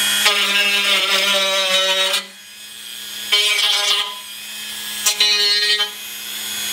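Dremel rotary tool running with a steady whine, grinding the jagged cut edge of a steel fender smooth. It bites in three stretches: a long one of about two seconds at the start, then two shorter ones.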